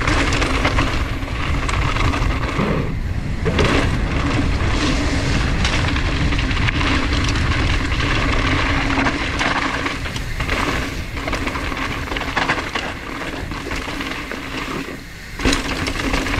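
Mountain bike rolling fast down a downhill trail: a continuous rushing rumble with a steady hum, and a few sharp knocks from bumps about three seconds in and again near the end.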